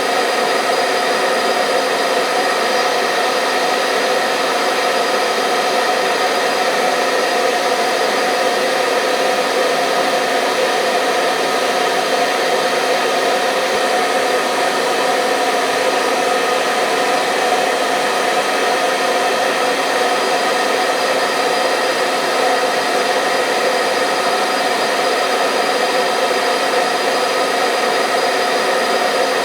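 Hair dryer running steadily, a constant rush of air with a steady motor whine, unchanging throughout.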